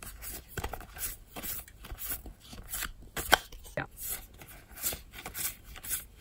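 Trading cards being slid off the front of a hand-held stack one by one, a quick papery swish or flick with each card, two or three a second, with one sharper snap a little past the middle.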